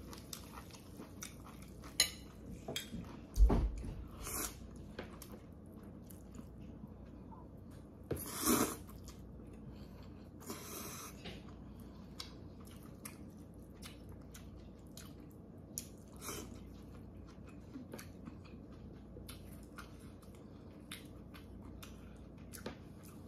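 Close-up eating sounds of a bowl of Korean thin noodles in anchovy broth: chewing, small clicks of chopsticks and utensils against the bowl, and two short slurps of broth about eight and ten seconds in. A sharp thump about three and a half seconds in is the loudest sound.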